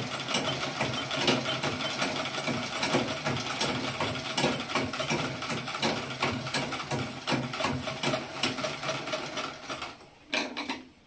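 Foot-treadle zigzag sewing machine running steadily with a fast, even clatter as it zigzag-stitches the edge of a silk saree. It stops near the end.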